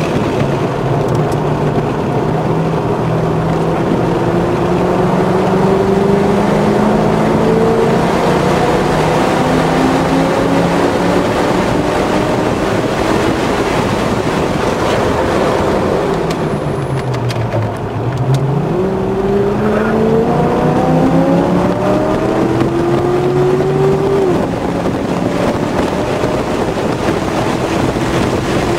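2006 Chevrolet Corvette Z51's 6.0-litre LS2 V8 under hard acceleration, heard from inside the cabin. Its pitch climbs steadily as the car gathers speed, dips and climbs again about two-thirds through, then drops a step near the end at an upshift of the automatic. Wind and road noise run underneath.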